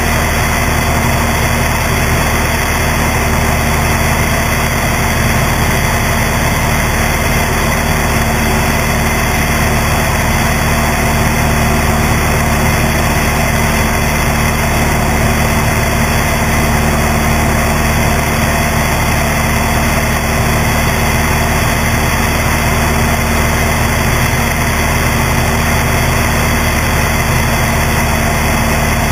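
Cessna 172's piston engine and propeller in steady cruise, a constant drone mixed with rushing air over the strut-mounted camera.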